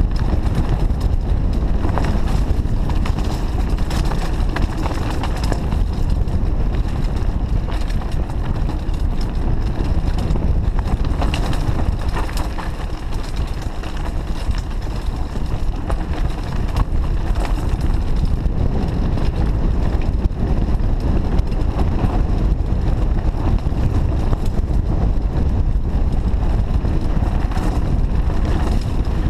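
Heavy wind buffeting on the microphone as a Trek Fuel EX 8 full-suspension mountain bike descends at speed, with continual rattles, chain slap and knocks from the bike and its tyres rolling over loose stones and rock.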